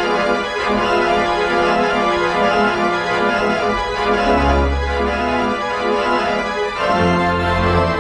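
Organ music: sustained organ chords, with a deep bass note coming in about halfway through and the chord changing again near the end.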